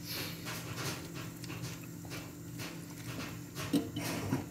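Metal ladle stirring noodles and cabbage in simmering broth in a pan, a rhythmic wet sloshing and scraping about twice a second, over a steady low hum; a short louder knock comes near the end.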